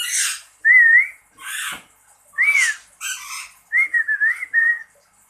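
Pet lory (nuri) calling: short whistled notes, some rising and falling or warbling, that mimic human whistling, alternating with three harsh, raspy squawks.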